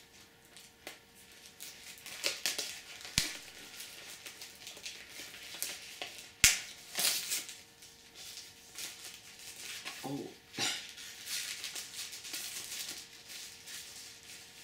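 Clear plastic shrink wrap being torn and peeled off a Blu-ray case, irregular crinkling and crackling with a few sharp snaps, the loudest about six and a half seconds in.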